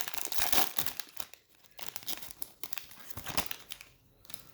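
Foil trading-card pack wrapper crinkling and tearing open. The crackling is densest for about the first second and a half, then thins to scattered crinkles and clicks.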